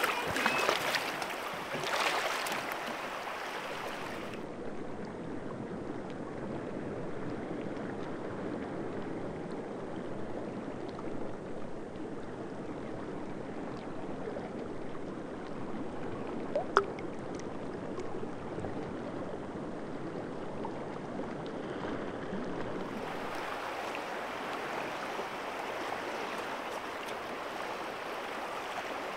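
Deschutes River flowing: a steady rush of moving water, with a few sharp louder sounds in the first three seconds and a single sharp click about 17 seconds in.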